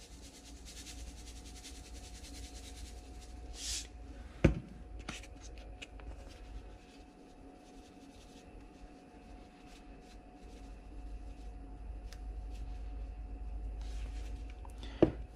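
Salt and pepper shaken from shaker containers onto a raw ribeye on a wooden cutting board: a faint rattling hiss of falling grains and light clicks of the shakers, with one sharp knock about four and a half seconds in.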